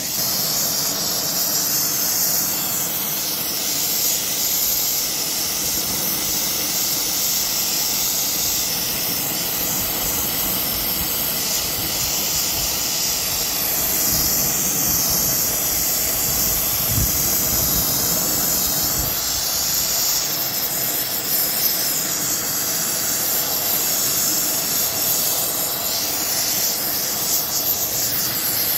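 Gas torch flame hissing steadily while it heats a dented two-stroke expansion chamber that is pressurised with air to about 60 PSI, so the dent pushes out.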